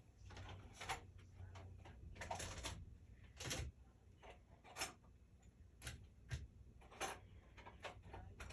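Faint, irregular clicks and light knocks of small tools and parts being handled on a repair bench, about a dozen spread unevenly, the loudest about three and a half seconds in.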